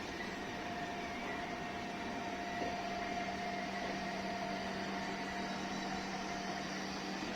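Steady hum and hiss of a train, with a constant low drone and a fainter higher tone held throughout.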